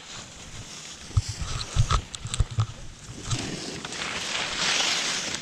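Knocks and rubbing of a hand and ski poles against a body-mounted GoPro, then a hiss of skis sliding over packed snow that builds over the last two seconds.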